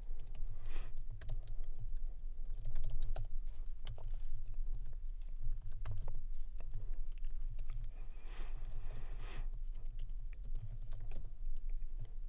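Typing on a computer keyboard in quick, irregular keystrokes, over a low steady hum.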